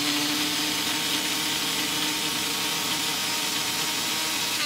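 Personal blender's motor running steadily at high speed, grinding whole almonds into coarse almond meal, with a steady motor hum over the grinding noise. It shuts off right at the end.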